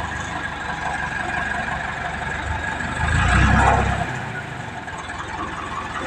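Mobile crane's engine running steadily, swelling louder for about a second around three seconds in.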